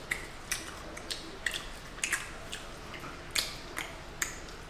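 Wet chewing and lip smacking while eating sauce-coated hot chicken wings: an irregular string of short smacks and clicks, about two or three a second.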